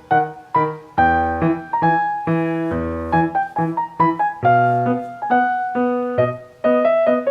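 Background music played on piano or electric piano: a melody of quick separate notes over held chords.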